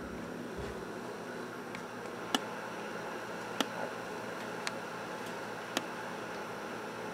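Steady hiss of quiet room tone broken by sharp clicks, four of them about a second apart.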